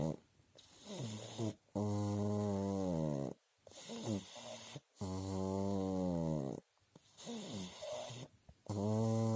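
A pug snoring. Three long snores come about every three and a half seconds, each about a second and a half long, with shorter, softer breaths between them.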